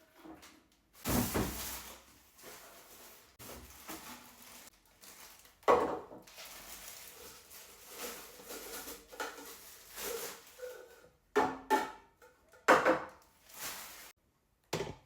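A new juicer and its packaging being handled. There are irregular rustles and several sharp knocks and clatters of parts, the loudest about a second in, near six seconds, and three more in the last few seconds.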